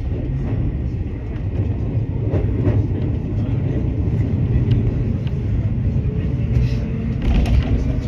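Electric train running at reduced speed, heard from inside the front cab: a steady low rumble of wheels and running gear, with a faint rising hum near the end.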